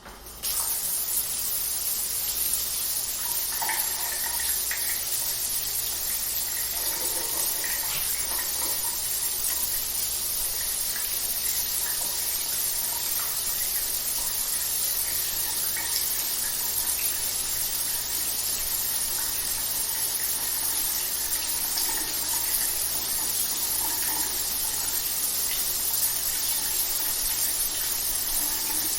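Shower running: a steady hiss of water spray that comes on within the first half second and stays even throughout.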